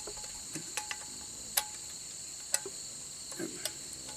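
A few sharp metal clicks as the latch on a military mess kit is worked to close the kit, over steady high-pitched insect chirring.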